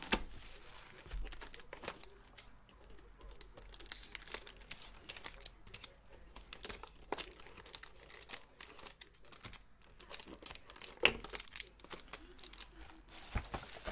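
Crinkling and rustling of plastic shrink-wrap and a cardboard trading-card box being opened, with foil card packs handled and lifted out. There is a sharp knock late on.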